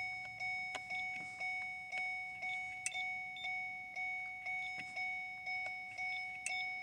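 Vehicle warning chime repeating steadily, about two dings a second, each a two-tone ring that fades before the next: the 2008 Mercury Mariner's key-in or door-open reminder sounding while the door is open and the key is in.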